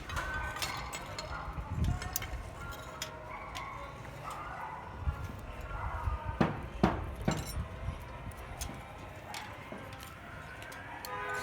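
Scattered metallic clinks and taps of steel rebar being handled and tied, with a few sharper knocks a little past the middle.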